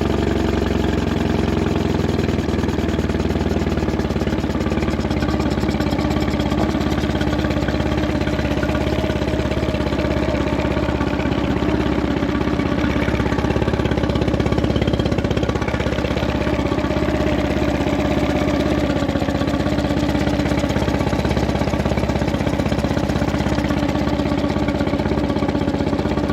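Tohatsu 20 hp four-stroke outboard motor running steadily just after starting, freshly serviced with new crankcase oil and gear lube.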